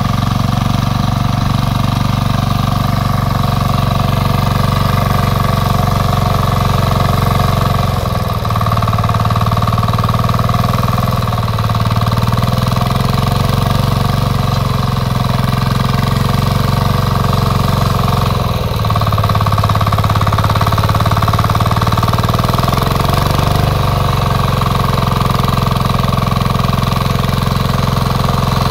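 An 11 hp rear-rotary power weeder running under load as its rotary tines till dry soil. The engine runs steadily, and its note drops and recovers a few times.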